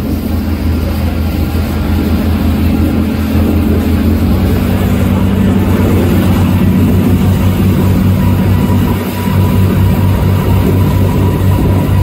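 Motorboat engine running steadily under way, a low drone with a fast even pulse; its tone changes about four seconds in.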